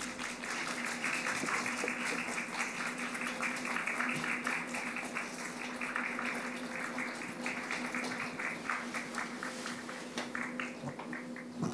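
Small crowd clapping, a dense steady spatter of applause that thins out near the end, over a steady low hum.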